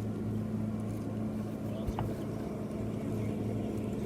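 Electric trolling motor humming steadily, with a single light knock about two seconds in.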